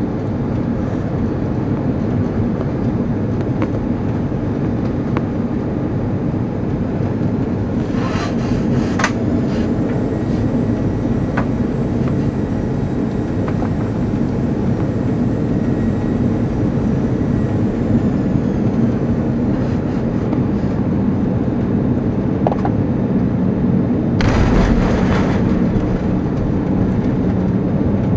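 Inside the cabin of an Airbus A340-300 on final approach: the steady roar of its CFM56 engines and the rushing airflow, with a brief louder rush near the end as the aircraft comes over the runway just before touchdown.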